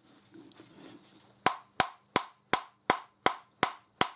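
Copper-head hammer striking the steel body of a lathe live centre: eight sharp, evenly spaced blows, about three a second, starting about a second and a half in. The blows are knocking the centre's shaft out through its bearings.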